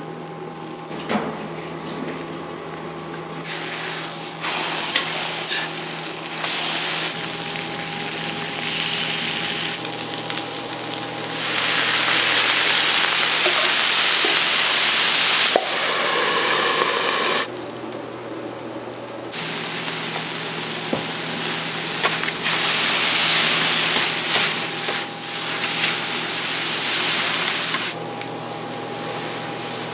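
Food sizzling on a hot teppan griddle as okonomiyaki and yakisoba noodles with cabbage fry. The hiss grows much louder for several seconds in the middle as the noodles steam, then swells again later, with a few clicks of metal spatulas and a steady hum underneath.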